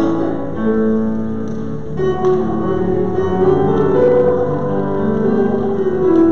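Instrumental music: a keyboard playing slow, held chords that change every second or two.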